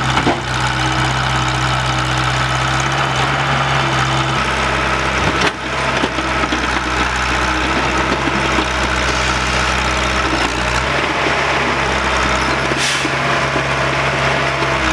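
Heavy diesel engines of a crawler excavator and a ten-wheel dump truck running steadily. The sound breaks off abruptly twice, just after the start and about five seconds in.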